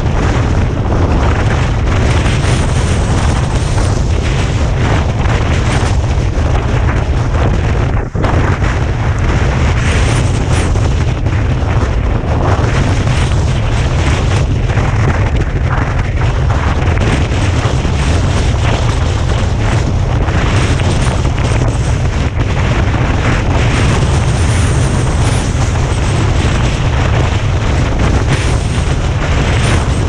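Strong wind on an action camera's microphone: a loud, unbroken deep rumble under a hiss.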